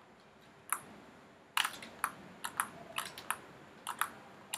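Computer keyboard and mouse clicks while operating software: about ten short, irregular clicks, most of them packed into the second half.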